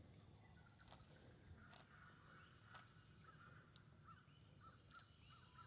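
Near silence: a faint outdoor background with a few soft, short bird chirps in the second half and a few light clicks.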